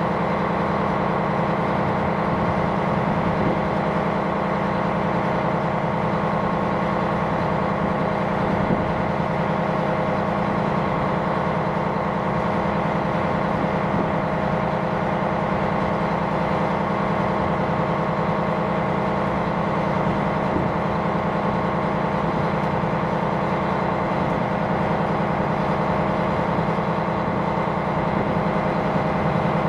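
Steady drone of a ship's diesel engine running at constant speed, a deep hum with several unchanging tones.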